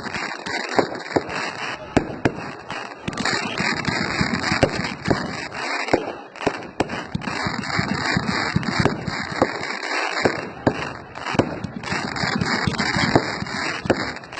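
Fireworks going off in quick succession: many sharp bangs over a continuous crackle.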